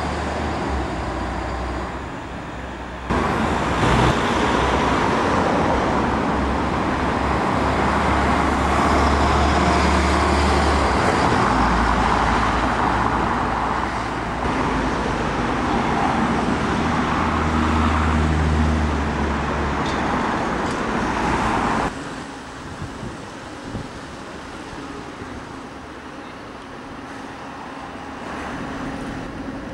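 Town road traffic: buses and cars driving past, with engine rumble and tyre noise. It gets louder about three seconds in and drops away suddenly about twenty-two seconds in, leaving a quieter bus running slowly.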